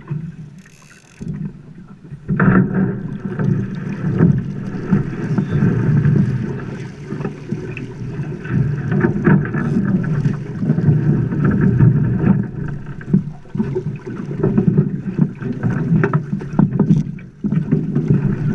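Water splashing and sloshing around a drift boat's oar and hull, with wind buffeting the microphone; it gets louder about two seconds in, with scattered small knocks.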